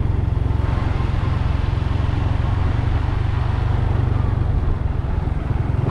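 Honda Dash 125 FI's single-cylinder four-stroke engine running steadily while the motorcycle is ridden, with a brief easing of the throttle near the end.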